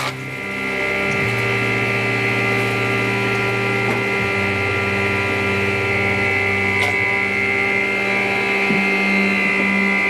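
An electric motor in a woodworking machine running steadily, giving a constant, even hum with a whine on top.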